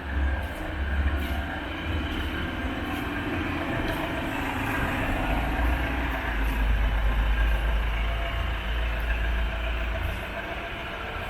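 A motor vehicle running with a steady low rumble, swelling a little in the middle and easing off near the end.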